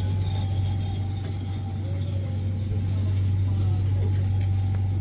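Steady low hum of supermarket refrigerated meat display cases, their cooling units running.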